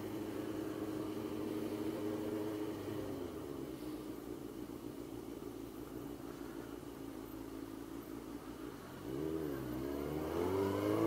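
Motorcycle engine running at low, steady revs, fading somewhat after a few seconds. About nine seconds in the pitch dips and recovers, then the engine revs up with a rising pitch and growing loudness as the bike accelerates.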